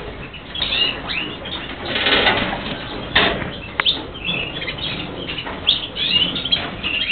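Birds flapping their wings in several rushes, the strongest about two and three seconds in, with short high chirps in between.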